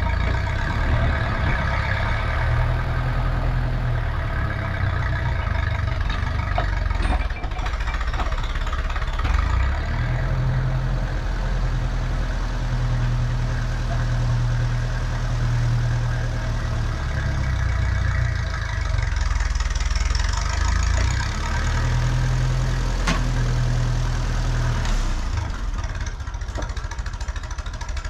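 Small grey Ferguson TE20 tractor's engine running, its note rising and falling as the throttle and load change. There are a few brief sharp clicks along the way.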